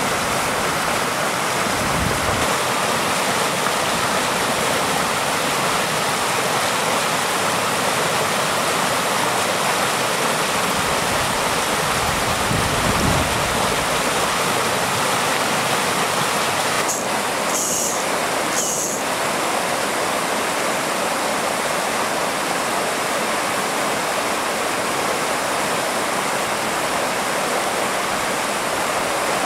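Steady rushing noise, like running water or wind, with two brief high-pitched sounds about two-thirds of the way through.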